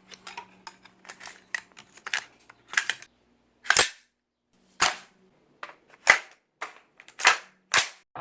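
Gunfire on a shooting range: a rapid patter of lighter shots in the first few seconds, then a string of about seven louder, irregularly spaced shots, each with a short ringing tail.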